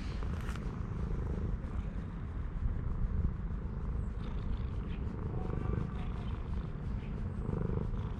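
A stray cat purring steadily in a low, rhythmic rumble while its head is stroked.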